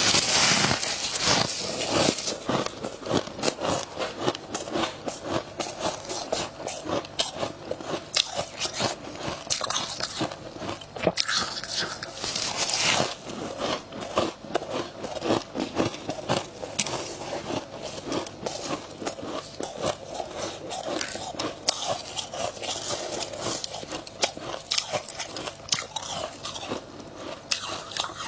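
Close-up crunching and chewing of freezer frost, bitten off in mouthfuls: a dense, crackly crunch that goes on without pause, loudest at the start and again about halfway through.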